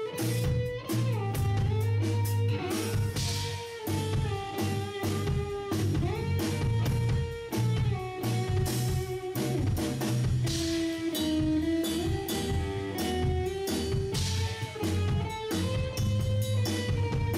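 Instrumental progressive rock: an electric guitar plays a melody of long-held notes that slide between pitches, over bass guitar and a drum kit.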